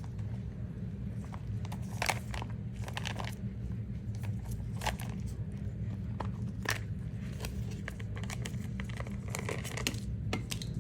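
Small cleaning tools and plastic packaging being handled: scattered clicks, crinkles and rustles, over a steady low hum.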